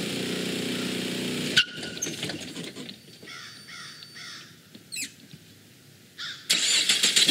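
Crows cawing about four times in quick succession. It opens with a steady low hum that cuts off abruptly, and near the end a loud straight-piped car exhaust cuts in suddenly.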